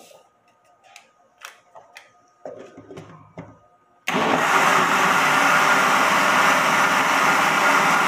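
A few light clicks and knocks, then about four seconds in an electric countertop blender switches on abruptly and runs steadily. It is mixing liquid cake batter with strawberry gelatin powder to dissolve it.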